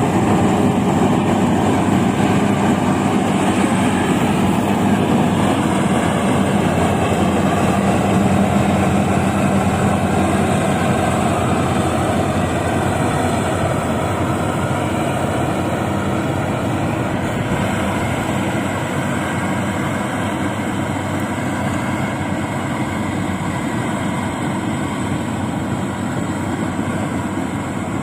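Rice combine harvester's diesel engine running at throttle as the machine drives off, a steady loud mechanical drone that slowly gets a little quieter.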